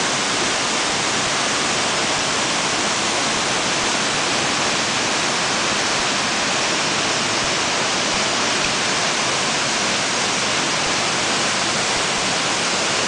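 Waterfall crashing down into its pool: a steady, loud rush of falling water with no change throughout.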